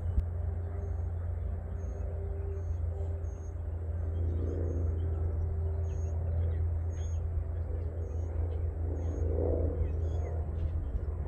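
A steady low rumble with little change in level.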